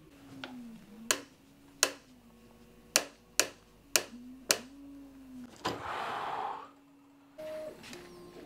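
Six sharp clicks over about three and a half seconds from a 3D-printed robot-arm gear joint as it is worked by hand while holding a weighted bar, followed by a short rustling burst about six seconds in.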